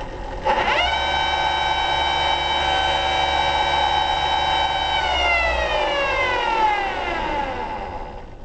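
Top fuel dragster fuel pump running on a flow-test rig, a high whine: it spins up fast about half a second in, holds a steady pitch, then winds down with falling pitch from about five seconds on.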